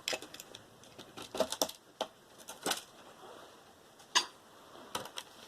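Irregular clicks and clinks of small metal parts and hand tools as aluminium pieces are pried and cut off a computer motherboard.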